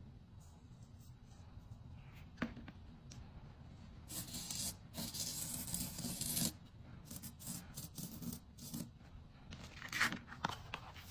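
Paper being peeled and torn, with a long peel about four seconds in and sharp crackles near ten seconds, typical of backing paper stripped off a sand-art card's sticky sections.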